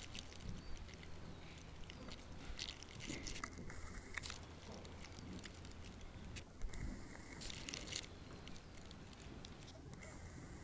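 Faint hoofbeats of a grey Arab horse moving on a sand arena surface, heard as scattered soft clicks.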